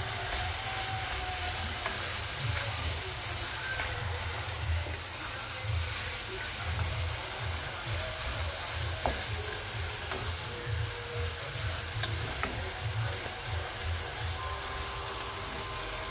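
Diced chicken thighs and onions sizzling steadily in a hot frying pan as a spatula stirs them, with a few faint clicks from the spatula and an uneven low rumble underneath.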